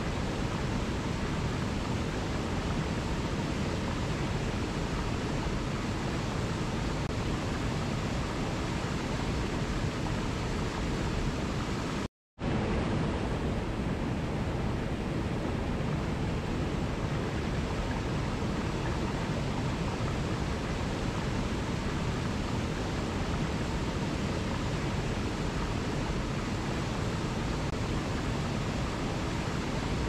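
Waterfall: a steady, even rush of falling water, which cuts out to silence for a split second about twelve seconds in.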